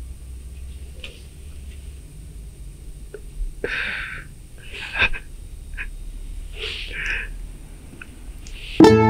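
A man weeping: a few sniffs and shaky, gasping breaths a second or two apart, with no words. Near the end, plucked-string music starts suddenly.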